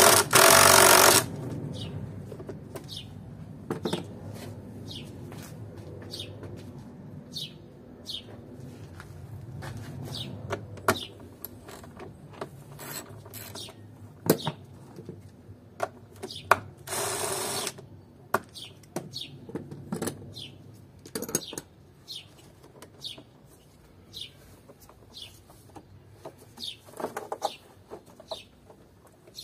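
A cordless impact driver runs for about a second at the start, backing out a bolt with a 5 mm Allen bit, and runs briefly again about 17 seconds in. In between, plastic engine-bay parts click and knock as they are handled, and a bird chirps repeatedly with short falling chirps, about one a second.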